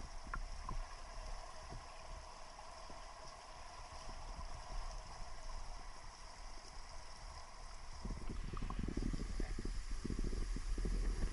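Waterfall water rushing and churning, heard from a camera held in the water, as a steady muffled wash. From about eight seconds in, heavy low rumbling and knocking of water against the camera grows louder.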